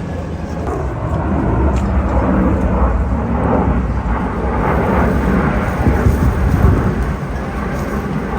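Loud, steady rumbling noise, heaviest in the low end.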